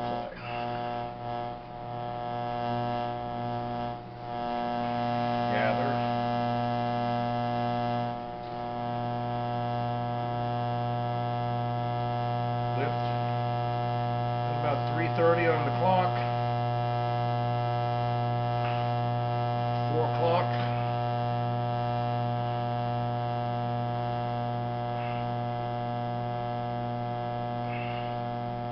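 Electric potter's wheel motor humming steadily, stepping up in loudness twice in the first several seconds, with a few short squeaks in the middle.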